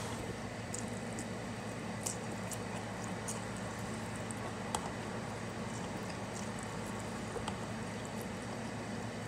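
Close-up wet mouth sounds of a person eating ramen noodles: slurping and chewing, with small scattered clicks, over a steady low hum.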